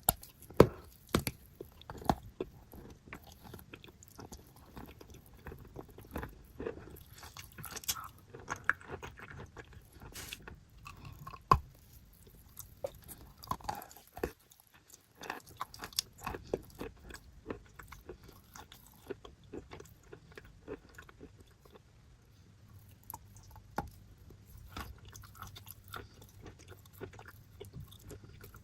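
Someone biting and chewing paste-covered chalk: irregular crisp crunches with quieter crackling chewing between, the loudest bites in the first couple of seconds and once more about eleven seconds in.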